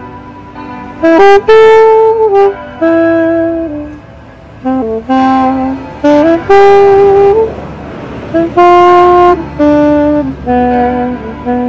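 Solo saxophone playing a slow melody, phrases of held notes separated by short pauses.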